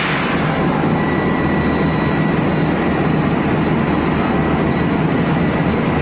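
Steady, loud din of a ship's engine-room machinery, with one sharp knock right at the start.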